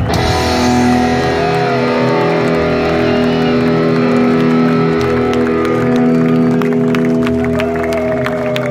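Heavy metal band playing live, heard from the crowd: after a last drum hit, the electric guitars and bass hold a ringing chord while a lead guitar bends and wavers its notes.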